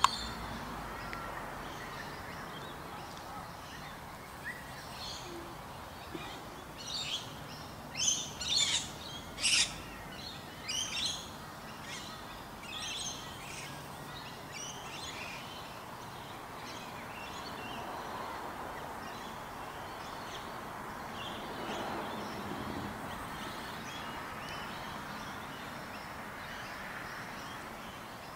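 Small birds chirping: a run of short, high chirps bunched from about a quarter to halfway through, over steady background noise. A single sharp click comes at the very start.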